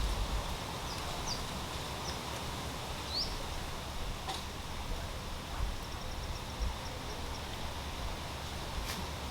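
Outdoor hillside ambience: a steady low noise like wind on the microphone, with a few short rising bird chirps in the first few seconds and a brief run of quick high ticks, a bird or insect call, about six seconds in.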